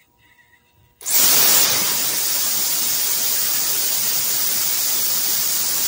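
Homemade arcjet thruster test-firing: compressed air rushes out of its nozzle in a loud, steady hiss that starts suddenly about a second in.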